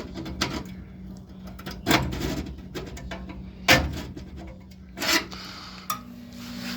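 Hands and fingers working at a gas furnace's switches and sheet-metal housing: about five short knocks and scrapes over a steady low hum. A second steady hum begins near the end.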